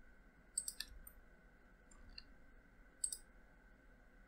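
Computer mouse clicks: a quick pair about half a second in, a couple of faint ones around two seconds, and another pair about three seconds in.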